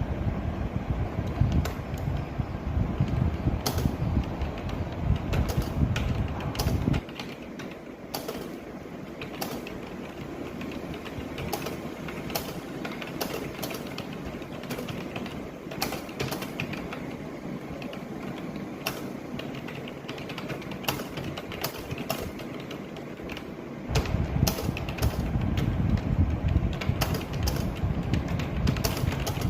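Irregular rapid keystrokes on a computer keyboard: someone typing continuously. A low rumble sits under the clicks, drops away after about seven seconds and returns near the end.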